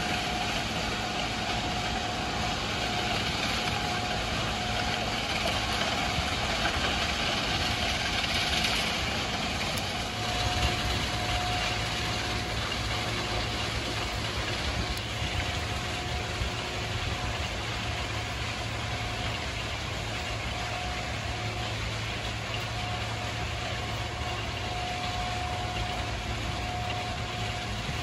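Ballast regulator's diesel engine running steadily as the machine works along the track, with a thin steady whine that comes and goes.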